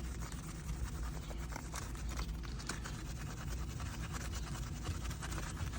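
Cloth rag rubbing over a plastic LCD screen, wiping off polish residue, with light, irregular scratchy strokes over a steady low hum.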